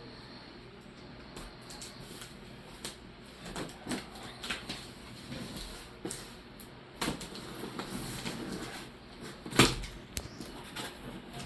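A large cardboard shipping box being handled and opened: scattered rustling, scraping and clicks, with one sharp knock near the end.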